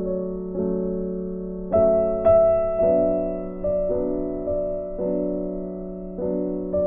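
Background piano music: a slow run of chords, a new one struck every half second or so and each left to ring and fade.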